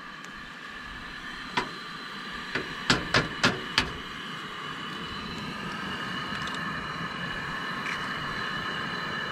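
Eggs being tapped and cracked on the rim of an aluminium egg-poacher pan on a gas camp stove: about six sharp taps between one and a half and four seconds in. Under them is a steady hiss from the lit burner and steaming pan, which grows slightly louder.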